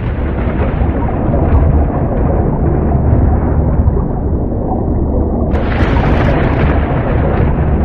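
A space recording presented as the sound of Venus, made audible from electromagnetic waves. It is a steady, deep rumbling roar of noise that turns brighter and hissier about five and a half seconds in.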